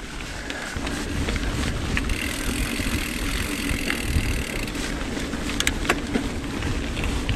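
Mountain bike being ridden on a trail: steady tyre-rolling noise and wind buffeting the camera microphone, with a few sharp clicks late on.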